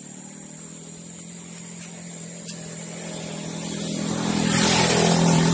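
A vehicle engine hums steadily at a constant pitch. It grows much louder from about three seconds in, as if coming closer.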